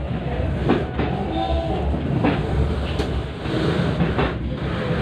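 Passenger train running along the track, heard from inside the carriage: a steady rumble with a few sharp clicks from the wheels on the rails.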